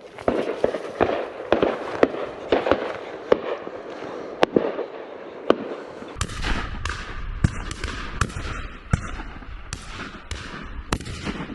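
Shotgun fire from several guns along the line at a driven pheasant and partridge shoot: about twenty sharp reports, some nearer and some distant, coming faster in the second half. A low rumble sits under the shots from about six seconds in.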